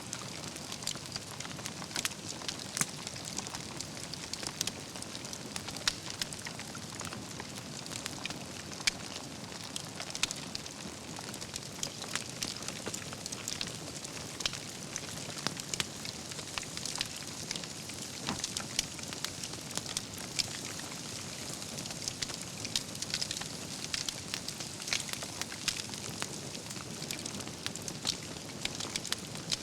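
Wood campfire burning: burning logs crackling and popping, with a steady hiss beneath and irregular sharp pops, a few louder than the rest.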